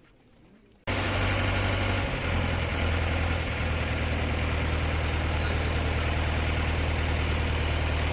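Engine idling with a steady low hum, cutting in abruptly about a second in.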